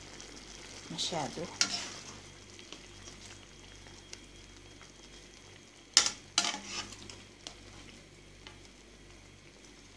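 Shrimp in 7 Up and garlic broth bubbling in a pan with a steady light hiss while a metal slotted spoon lifts them out. The spoon clinks sharply against the pan a few times about six to seven seconds in. The broth is being boiled down.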